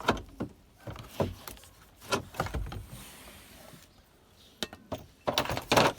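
BMW E46 dashboard parts being pulled free by hand: a series of knocks and clicks from plastic trim and clips, with a longer, louder rubbing scrape near the end.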